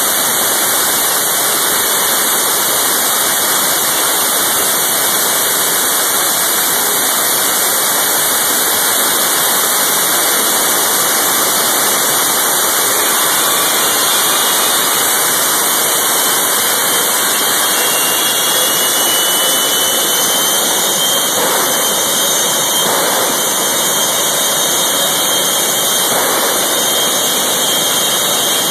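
Jet hearse's turbine engine running with a loud, steady rushing noise. About halfway through, a high whine rises in pitch.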